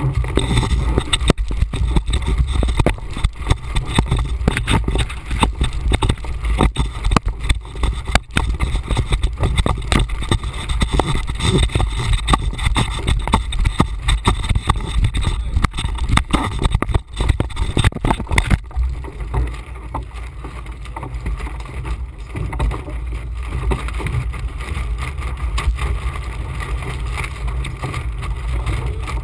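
Wind buffeting the microphone aboard a Laser 2000 sailing dinghy heeled in fresh, gusty wind, over the rush of water and spray along the hull. The buffeting eases a little about two-thirds of the way through.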